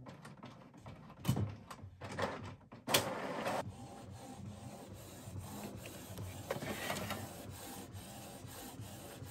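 Canon Pixma TS9521C inkjet printer running its initial adjustment cycle. A few clicks and knocks come first, the loudest a sudden clack about three seconds in, then its motors keep up a steady whir with light ticking.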